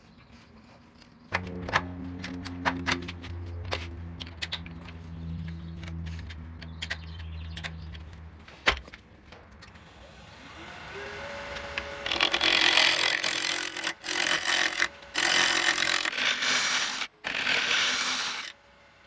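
A low motor hum with scattered clicks, then a wood lathe spinning with a faint high whine while a turning tool cuts the mallee burl blank in four loud scraping passes of one to two seconds, each stopping abruptly.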